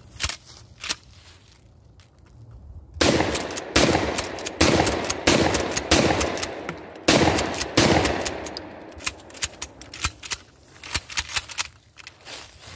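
A long gun fired in quick succession, about eight shots in five seconds, each crack ringing out behind it, then a scatter of shorter, quieter cracks. Two faint clicks of the gun being handled come first.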